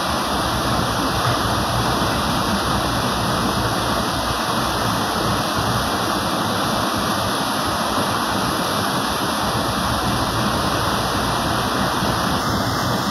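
Steady rushing of river water pouring through white-water rapids.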